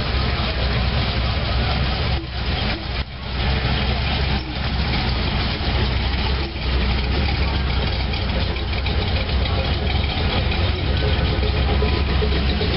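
Lowered early-1960s Chevrolet C10 pickup's engine idling as the truck rolls slowly past close by, a steady low rumble.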